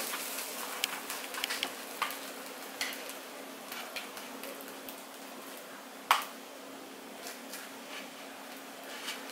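A spoon spreading thick tamarind chutney over toasted bun halves, with soft scrapes and scattered sharp clicks of the spoon, the sharpest about six seconds in. A steady low hum runs underneath.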